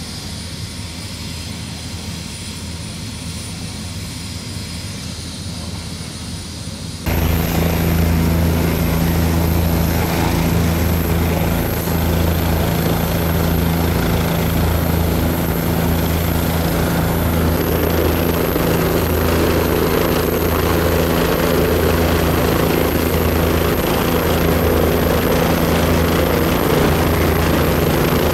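Air ambulance helicopter running, a steady low rotor and engine drone; it jumps abruptly louder about seven seconds in and holds steady after that.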